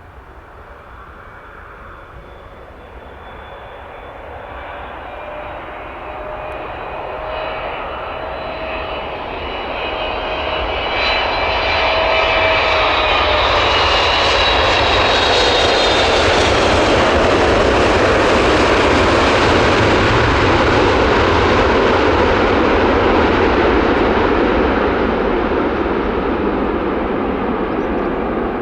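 Jet airliner engines growing louder as the aircraft approaches and passes, a rushing roar with a whine that slides slowly down in pitch. The sound peaks about two-thirds of the way through, then eases off a little.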